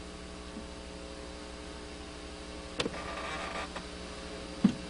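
Steady low electrical hum under the recording. About three seconds in there is a click followed by a soft whirring noise lasting under a second, and another click comes near the end.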